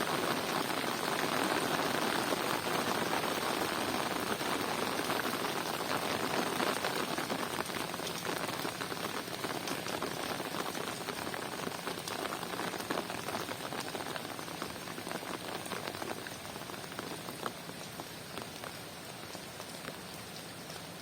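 Heavy rain falling steadily, a dense wash with a patter of many individual drops; it grows gradually quieter through the second half.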